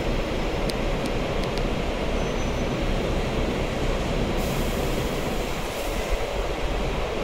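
Steady low rumble inside a tram standing still, with a few light clicks in the first two seconds.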